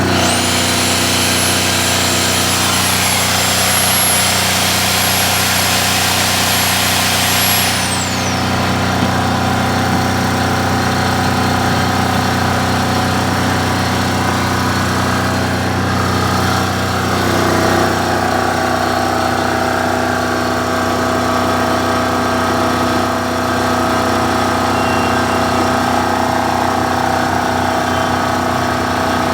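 SDG12800E diesel generator running steadily. A high whine with hiss sits over it for the first eight seconds and then cuts off. About 18 seconds in, the engine's note shifts slightly and settles.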